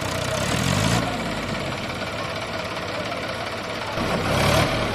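Diesel engines of a John Deere tractor and a Mahindra Arjun 555 DI tractor running under heavy load. The John Deere is towing the Mahindra's stuck, sugarcane-laden trolley. The engine sound swells about four seconds in.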